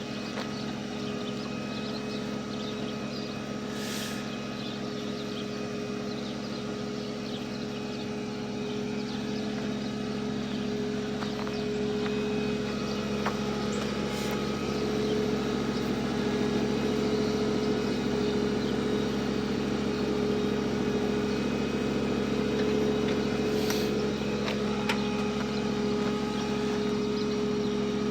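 A vehicle engine idling steadily, growing a little louder about twelve seconds in.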